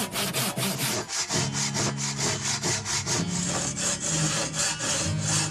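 Hand saw cutting through wood in quick, regular back-and-forth strokes.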